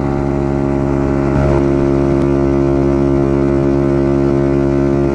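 125cc dirt bike engine running steadily at cruising speed, a constant drone that gets a little louder about a second and a half in.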